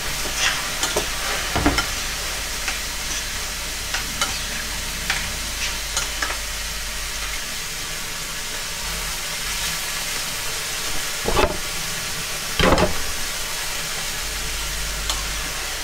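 Chicken frying and sizzling in a pan, with a utensil stirring, scraping and clicking against the pans. Two louder knocks come a little over a second apart about two-thirds of the way through.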